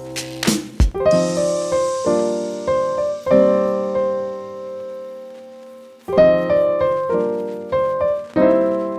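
Background piano music: chords struck and left to ring, with a few sharp percussive hits in the first second and a lull between about four and six seconds in.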